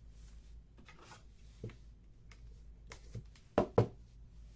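Trading cards being handled: a few faint taps and rustles, then two sharp clicks in quick succession about three and a half seconds in, over a low steady hum.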